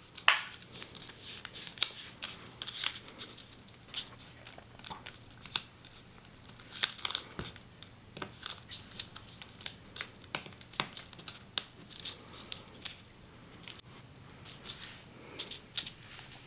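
Small plastic toy pieces being handled and snapped together: irregular clicks and taps with light rustling.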